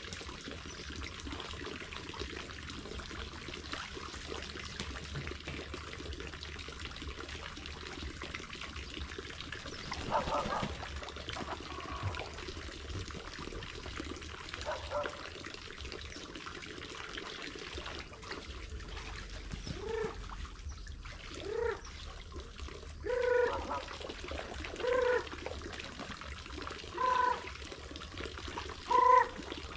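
Steady trickle of water running into a farm water trough. From about two-thirds of the way in, white domestic waterfowl in the trough call repeatedly, short calls every second or two.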